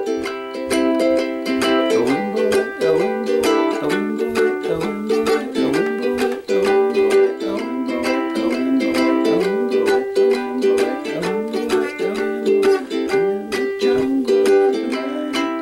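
Acoustic ukulele strummed in a steady, quick rhythm, chords ringing with a strum stroke several times a second.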